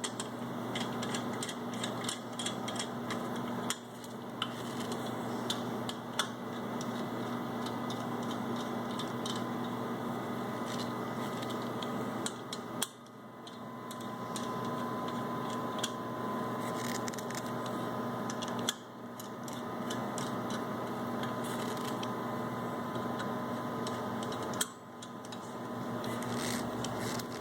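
Faceplate bolts on a rotary vane air compressor being tightened by hand with a tool, heard as many quick small metallic clicks and ticks over a steady low hum.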